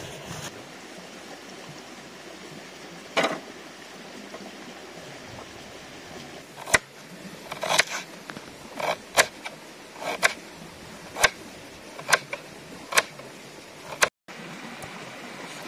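Kitchen knife chopping ginger on a wooden cutting board: sharp knocks of the blade against the board, roughly one a second from about seven seconds in, over a steady background hiss. A single knock comes about three seconds in.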